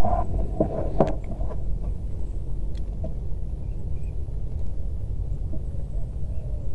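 A steady low rumble, with a few short clicks about a second in.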